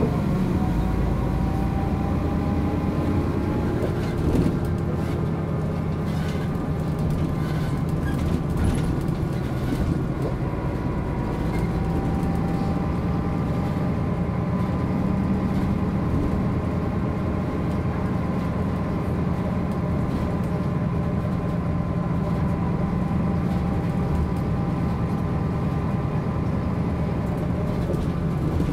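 Diesel engine and driveline of a 1999 MAN NG 262 articulated city bus running on the road: a steady low drone with a whine that falls in pitch at the start and climbs again from about ten seconds in. There is a brief knock about four seconds in.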